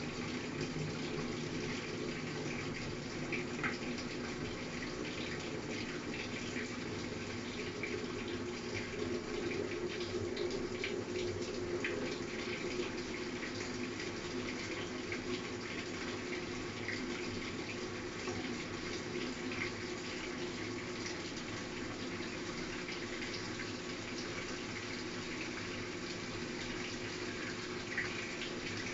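Water filling the tub of a Frigidaire top-load washer with both the hot and cold inlet valves open together in the diagnostic valve test: a steady rushing pour with a low hum beneath it.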